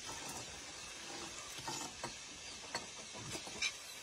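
Metal spoons clinking and scraping against a ceramic bowl in a few light, scattered clicks.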